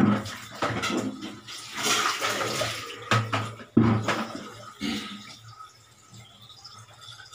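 Water scooped with a plastic dipper and poured and splashed over laundry in plastic basins while rinsing clothes by hand. It comes in several separate splashes and pours, going quieter after about five seconds.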